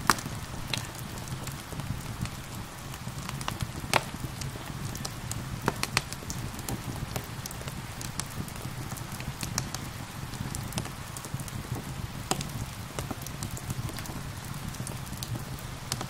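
Wood fire crackling, with irregular sharp pops, a few of them louder, over a steady hiss of gentle rain.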